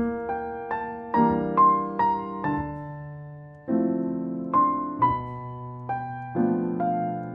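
Background music: a slow piano piece, chords and single melody notes struck one after another, each ringing and fading.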